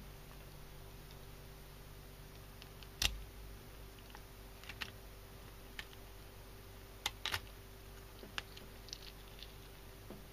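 Kitchen scissors snipping out a fish's gills: a scattering of short, sharp clicks, the loudest about three seconds in and two close together about seven seconds in, over a faint steady hum.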